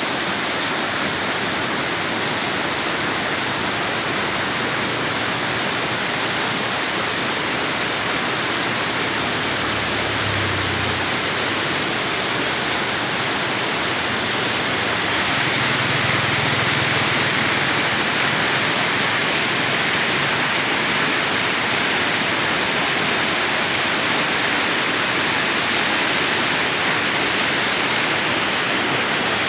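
River water rushing and splashing in a steady, continuous roar, like water pouring over rocks or a small weir.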